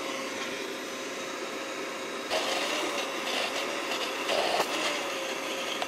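Vitamix blender motor running at high speed through a thick sauce, its pitch wavering. About two seconds in it turns louder and rougher as the blades catch the mixture, which the chef takes as a sign that it is too thick and needs more liquid.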